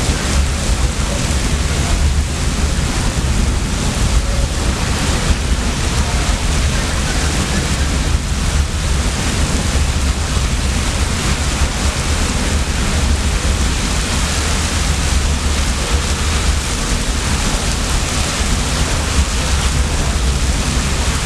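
Large fuel fire on a live-fire industrial training prop burning steadily with a loud, even rush, mixed with the spray of firefighting hose streams, with a deep rumble underneath.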